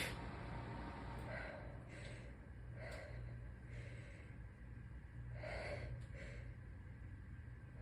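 The tail of a stifled sneeze right at the start, then a congested person's quiet breathing: a handful of faint short breaths or sniffs about a second apart.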